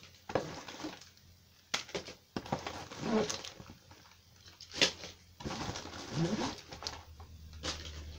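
Plastic bags of toy parts and the cardboard box being handled: rustling and crinkling with a few sharp clicks and knocks. Two short low hums from a voice, a little after the midpoint and again near the end.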